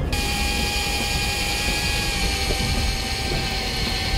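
Electric fishing reel's motor whining steadily as it winds in the line with a fish on; the whine starts suddenly.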